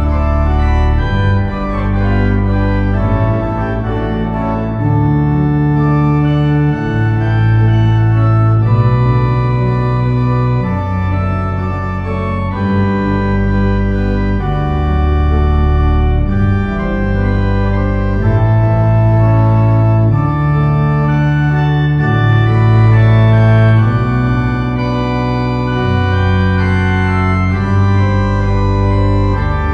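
Organ playing slow sustained chords over a deep bass line that moves to a new note every second or two.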